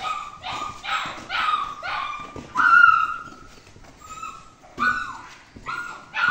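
A dog yelping over and over in short, high-pitched yips and whines, about two a second at first, then more spaced out.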